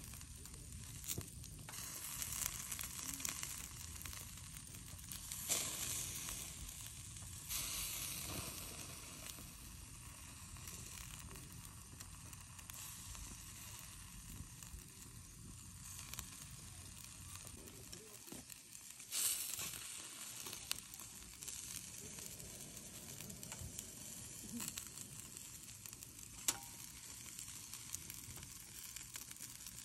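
Chicken drumsticks sizzling on the wire grate of a small charcoal grill. The hiss swells louder several times and is broken by a few sharp clicks as wooden chopsticks turn the pieces on the grate.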